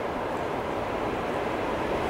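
VL10U two-section electric locomotive hauling a freight train as it approaches: a steady running noise that grows slowly louder.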